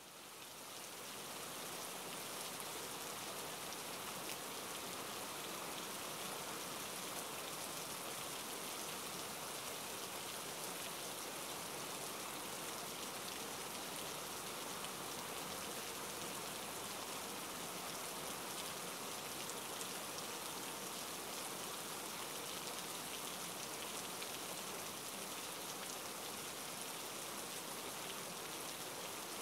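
Steady rain falling, a dense even hiss of many drops, fading in over the first two seconds and then unchanging.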